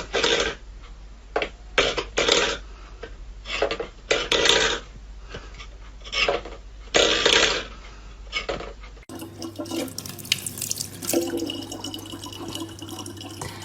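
Irregular bursts of splashing water. Then, after a cut, a water tap running steadily.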